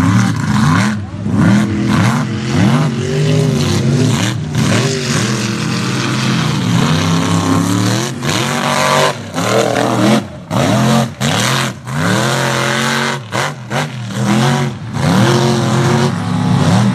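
Mega truck's engine revving hard again and again, its pitch climbing and dropping as the truck churns through the mud pit. The sound cuts out briefly several times in the second half.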